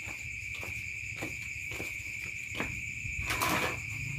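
Steady high-pitched trilling of crickets, over a low rush of water from a garden hose filling a rubber tub. A few light clicks, and a brief rustle about three and a half seconds in.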